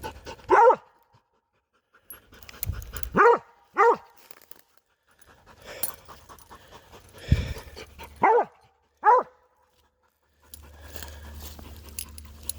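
Squirrel dog barking treed: five short barks with pauses of up to several seconds between them, the dog baying at a tree where it has put up a squirrel.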